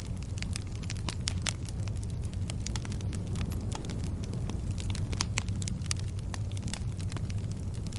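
Wood fire crackling: a steady run of sharp pops and snaps over a low, even rumble of the flames.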